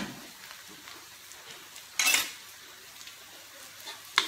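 Low sizzle of shallots and garlic frying in oil in a metal wok, with a short clatter about two seconds in and a sharp knock of the wooden spatula on the wok near the end.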